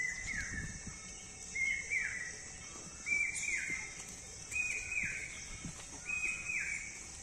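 A bird calling a repeated two-note phrase five times, about every one and a half seconds: each phrase a short level note followed by a downward-slurred one. A steady high hiss runs underneath.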